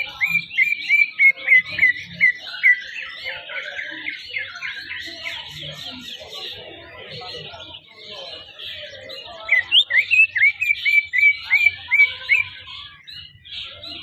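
Caged male green leafbird (cucak ijo) singing: a run of loud, repeated whistled notes, about four a second, at the start and again about nine and a half seconds in, over constant busy twittering.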